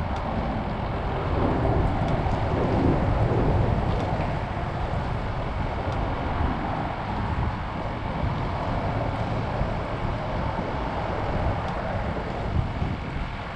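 Wind blowing across the microphone, a steady low rush.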